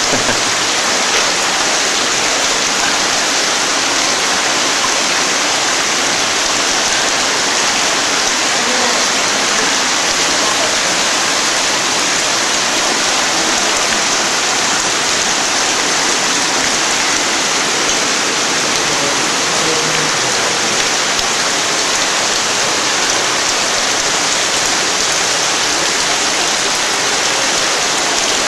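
A steady, even hiss of noise that does not change.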